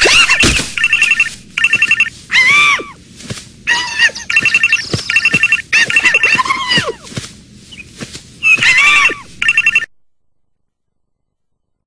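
Telephone ringing in repeated short trilling bursts, broken up by high, swooping cartoon-character vocal sounds. Everything cuts off abruptly about ten seconds in.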